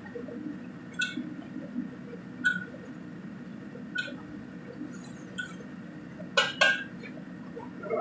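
Metal wok ladle clinking against a wok while stir-frying, with a clink about every one and a half seconds and two louder clanks in quick succession near the end. A steady low hum runs underneath.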